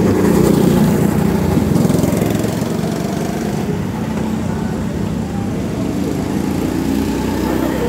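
Several go-karts' small petrol engines running as the karts pass close by, loudest in the first two seconds, then continuing a little quieter as they head away down the track.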